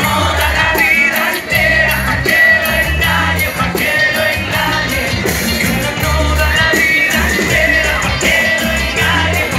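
Live band music with electric guitar, bass and a drum kit keeping a steady beat, and voices singing, recorded from within the audience.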